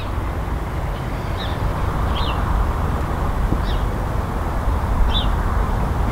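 Steady rumbling wind noise on the microphone across open farmland, with a small bird giving short, high, falling chirps every second or so.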